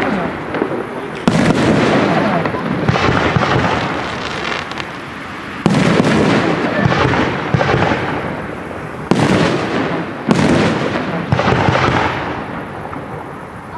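Aerial firework shells bursting in a display: about four sudden loud bangs a few seconds apart, each followed by dense crackling that fades away.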